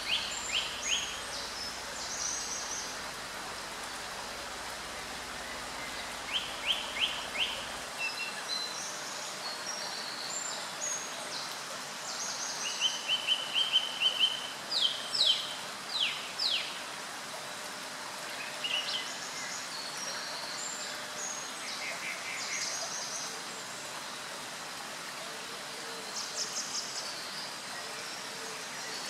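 Small birds singing: repeated short, high-pitched phrases and trills, thickest in the middle, over a steady background hiss.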